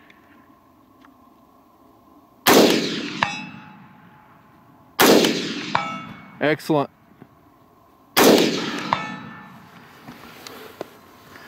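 Three AR-15 rifle shots, about three seconds apart, each echoing off the hills. A moment after each shot comes the faint clang of a distant steel plate target: three hits.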